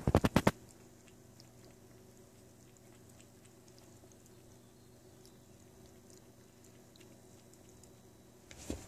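A cat licking at a plastic pet bowl: a quick burst of loud clicks in the first half second, then faint small ticks, with a few more clicks near the end.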